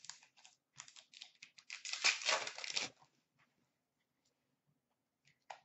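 A 16-17 Upper Deck SP Authentic hockey card pack being torn open: a few short scratchy rustles, then a denser, louder tearing and crinkling of the wrapper about two seconds in that stops about three seconds in.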